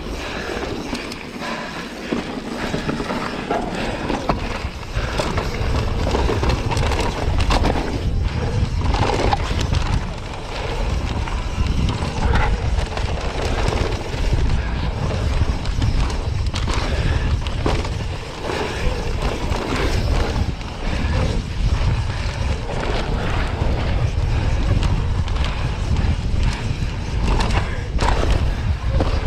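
Full-suspension enduro mountain bike ridden fast down a dry, rocky dirt trail: tyres rolling and skidding over dirt and stones, with the chain and frame rattling over bumps. Wind rumbles on the chest-mounted camera's microphone, and the noise dips briefly twice.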